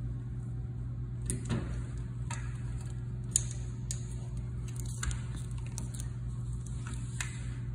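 Scattered light clicks and taps of a hand screwdriver and a range power cord's ring terminals being worked at the stove's terminal block, about eight in all, over a steady low hum.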